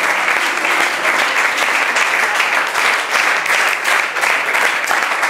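A small group of people applauding, clapping steadily and densely throughout.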